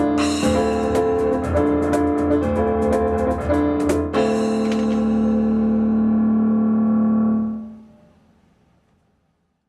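Piano and percussion duo finishing a song: quick piano figures over percussion hits, then about four seconds in a final crash and a held piano chord. The chord rings for about three seconds, then is cut off and dies away to silence.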